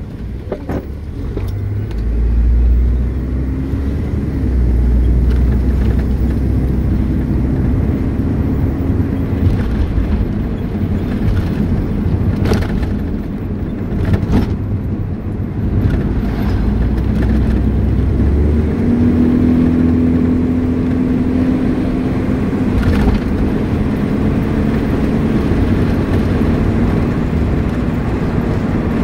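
Car moving at road speed, heard from inside the cabin: a steady low rumble of tyres and road with the engine's hum, which rises in pitch a couple of times. There are two light knocks about halfway through.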